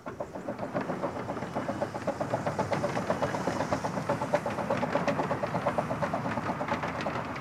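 Narrow-gauge steam locomotive working along with a rapid, even beat of exhaust chuffs, several a second, growing louder over the first couple of seconds.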